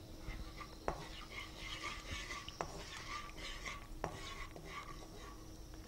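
Metal spatula stirring chilli powder frying in oil in a non-stick kadai: a faint sizzle and scraping, with three light taps of the spatula on the pan about a second and a half apart.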